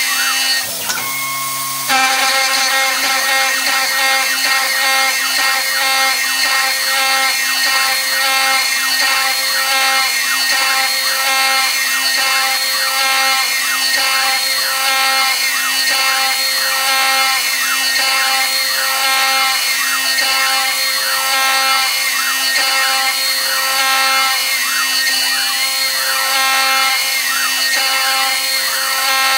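CNC router spindle with a small end mill climb-milling a round hole in aluminium plate at 0.03 in depth of cut. A steady spindle whine sits under the hiss of an air-blast nozzle, and the cutting tone rises and falls over and over as the tool circles the hole. About a second in, the cutting sound drops out for about a second and a lower hum takes its place, then the cut resumes.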